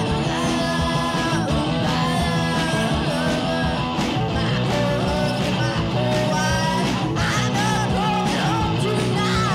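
Loud garage-punk rock song: electric guitar and drums with a voice singing over them.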